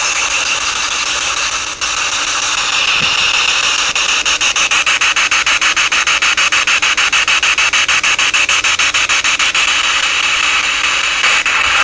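Ghost box, a handheld radio sweeping through stations, giving out loud hissing static. From about four seconds in the hiss is chopped rapidly and evenly as it steps through the frequencies, then it smooths out again near the end.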